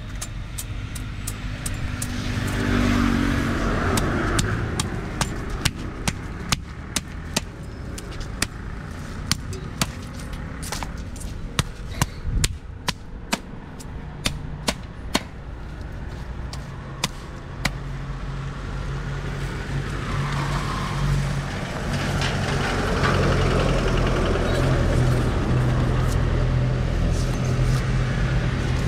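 Knife scraping scales off a large carp on a wooden chopping stump: many sharp, uneven clicks, about one or two a second, which thin out about two-thirds of the way through. Road vehicles pass twice, rising and falling, the second with a low engine drone.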